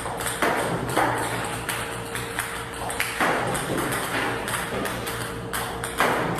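Music with held tones and many sharp clicks and pings.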